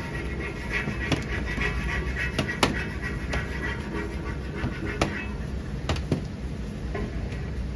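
Hand-making xiaolongbao at a work counter: irregular sharp knocks, about one every second or so, over a steady low kitchen hum.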